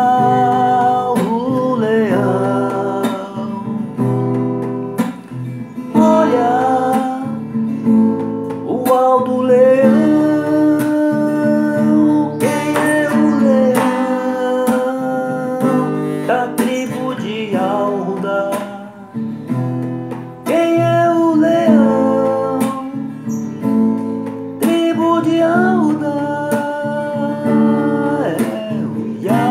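Acoustic guitar music with a voice singing over it.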